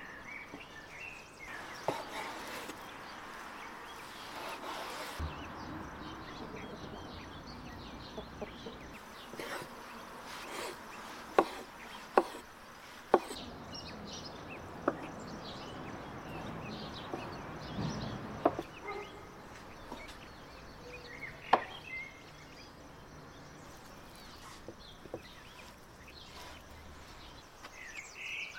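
Large knife cutting raw chicken breast on a wooden cutting board: irregular sharp knocks as the blade hits the board. Birds chirp now and then in the background.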